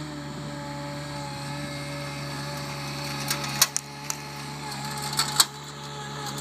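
AL20DX compact articulated loader running steadily with a held engine hum. A few sharp knocks come about halfway through and again near the end.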